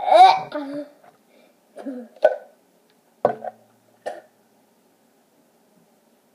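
A boy's pitched exclamation of disgust, then a few short coughing and throat-clearing sounds into a plastic cup held at his mouth, with one sharp click a little after three seconds in. He is reacting to a foul-tasting jelly bean.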